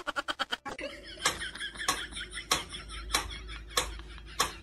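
Mechanical wind-up metronome ticking steadily, a little under two ticks a second, starting about a second in. Before it, a quick run of clicks dies away.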